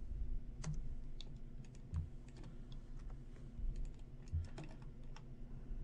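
Computer keyboard and mouse clicking: irregular, scattered key and button clicks, with a few soft low knocks, as of hands on a desk.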